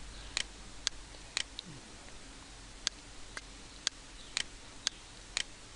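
Computer mouse button clicking about a dozen times at uneven spacing, some clicks in quick pairs, as tabs in a software dialog are selected.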